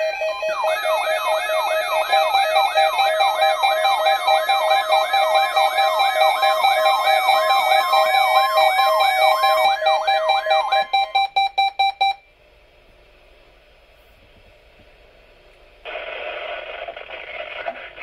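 Many NOAA weather radios sounding their alert alarms together for a Required Weekly Test: overlapping warbling sweeps, about three a second, layered with steady beeps. The alarms cut off about twelve seconds in, and a few seconds later the radios' broadcast audio starts as a noisy hiss.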